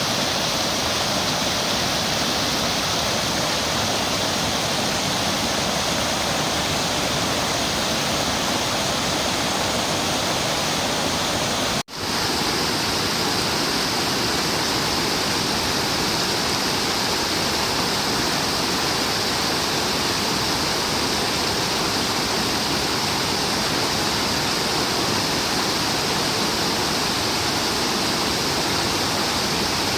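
Wide, low waterfall, about 6 m high, pouring steadily: a dense, even rush of water. The sound cuts out for an instant about twelve seconds in, then resumes unchanged.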